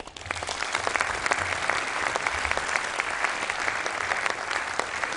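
Audience applauding: dense, steady clapping that begins right after the speech ends and builds within the first second.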